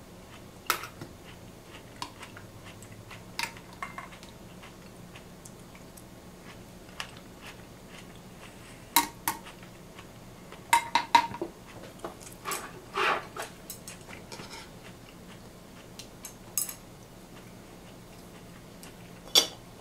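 Metal serving utensils clinking against a glass baking dish and stainless steel bowls while marinated chicken and vegetables are served. Scattered sharp clicks, busiest about halfway through.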